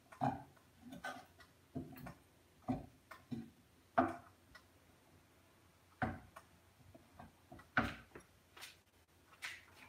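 Wooden spatula knocking and scraping against a frying pan while stirring and scooping vegetable stuffing: a dozen or so irregular clacks, some louder than others.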